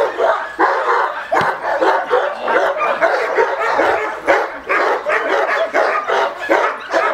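Male cane corso barking over and over, about two barks a second, while it is worked up in protection (bite) training.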